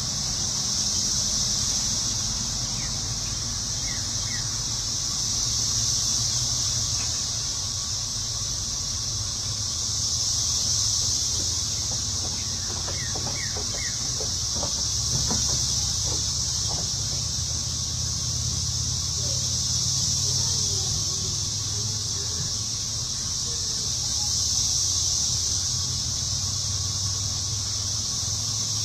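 Steady high-pitched insect chorus, swelling and fading every four to five seconds, over a low wind rumble, with a few faint short chirps about four and thirteen seconds in.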